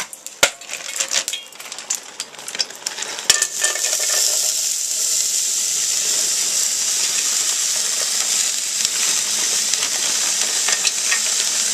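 A few rustles and clicks as a plastic packet of raw mince is handled, then the mince hits hot vegetable oil in a pan and sizzles steadily from about three and a half seconds in.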